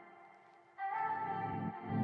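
Background music: slow sustained instrumental chords, quiet at first, with a new fuller chord coming in about a second in.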